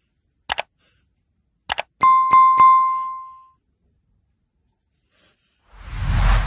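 Subscribe-button animation sound effects: two sharp mouse-click sounds, then a notification bell chiming three times in quick succession and ringing out, and a whoosh near the end.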